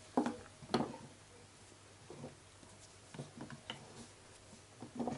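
Faint, scattered taps and clicks of a plastic Play-Doh toy set and modelling dough being handled.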